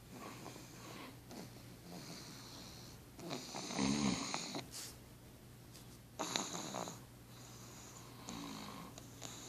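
Pug snoring in its sleep: a string of raspy, wheezy breaths about a second apart, the loudest about four seconds in.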